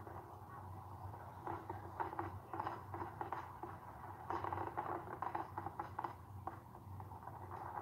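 Fireworks crackling and popping in irregular clusters, heard thin and muffled through a TV speaker and picked up in the room, over a steady low hum.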